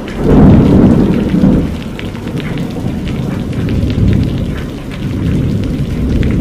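Heavy rain pouring down on open ground, a steady hiss with scattered drop ticks. A loud low rumble swells and fades in the first second and a half.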